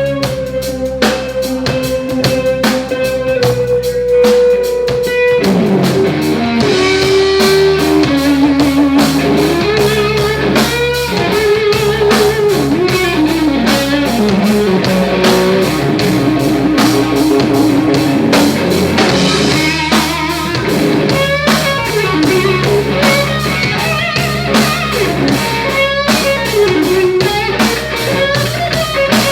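Live blues rock band playing an instrumental passage: an electric guitar lead holds one long note for about five seconds, then plays bending phrases and fast runs over a steady drum kit beat.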